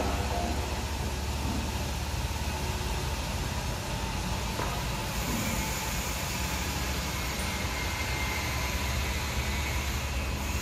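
An engine running steadily with a low rumble, unchanging throughout.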